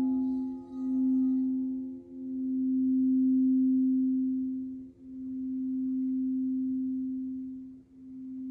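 Crystal singing bowl ringing with a steady low tone that swells and dips in slow waves a couple of seconds apart. Its fainter higher overtones die away in the first second or two.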